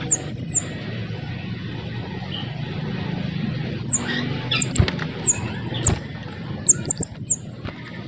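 Small minivet (mantenan sepah kecil) calling with thin, very high notes, each slurring downward. Two come near the start, then a run of about eight from about four seconds in.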